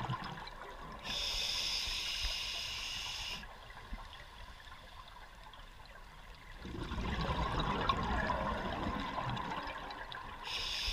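Scuba regulator breathing underwater: a hissing inhale through the demand valve lasting about two seconds, a quieter pause, then a gurgling rush of exhaled bubbles for about three seconds, with the next inhale hiss starting near the end.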